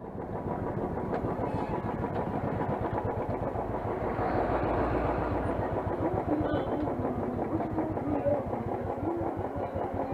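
Motorcycle engine running steadily, fading in from silence at the start.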